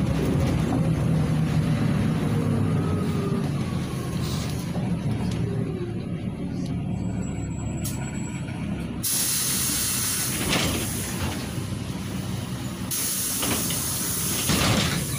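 Interior of a LiAZ 5292.67 city bus slowing to a stop, its YaMZ-53624 natural-gas engine running with a low hum and a few falling whines as it winds down. About nine seconds in, a loud air hiss from the bus's pneumatic air brakes starts suddenly, breaks off briefly and resumes near the end.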